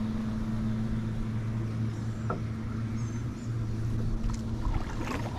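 A boat motor running with a steady low hum.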